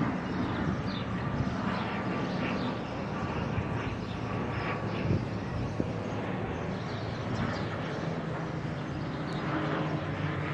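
Twin-turboprop airliner flying overhead on approach to land, a steady engine drone with a low hum that grows a little louder near the end.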